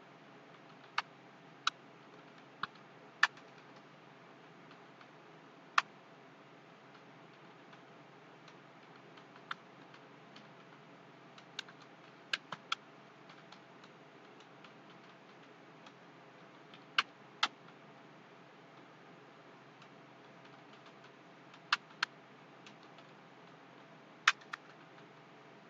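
Scattered clicks of a computer keyboard: single keystrokes and quick pairs with pauses of a second or more between them, over a faint steady hiss.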